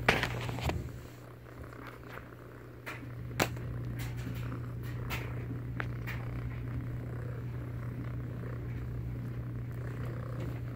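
Domestic cat purring steadily while being petted, with a few light clicks and rustles of handling against the bedding.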